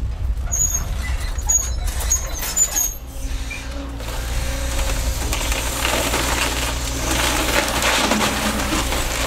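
Link-Belt hydraulic excavator's diesel engine running with a steady low rumble as its bucket tears into a house's roof and walls, with a few short high squeaks in the first few seconds. From about four seconds in, wood framing and debris crunch and crackle as the structure is pulled apart.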